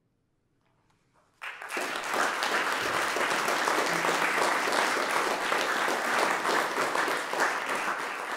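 Audience applauding: after about a second and a half of near silence, clapping breaks out suddenly and goes on steadily.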